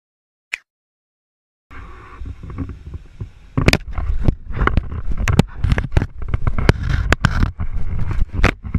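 Handling noise on the camera's microphone as an animal pushes its face and mouth against it: a low rumble with a quick run of knocks and scrapes, starting after nearly two seconds of silence.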